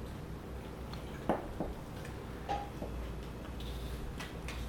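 Corgi puppy chewing a piece of apple, with a few short, sharp crunches and clicks scattered through the chewing.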